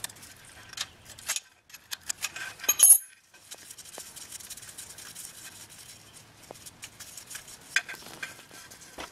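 An 11 mm wrench clicking and clinking against the speedometer cable hold-down bolt on a Ford Ranger's transmission tailshaft housing: a run of sharp metallic ticks, with the loudest clink about three seconds in. It then cuts off suddenly, leaving a faint hiss with an occasional tick.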